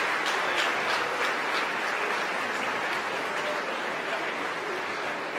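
Crowd applauding, slowly dying down, in response to the confirmed first-stage separation.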